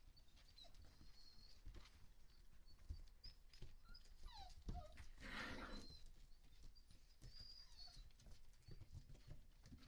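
Faint sounds of husky puppies moving about: small high whimpers and squeaks, a falling whine about four seconds in, and soft knocks of paws on the wooden floor.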